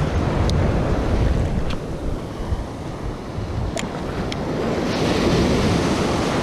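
Small surf waves breaking and washing around close by, with wind buffeting the microphone; a wave surges up louder near the end. A few faint light ticks sound over the wash.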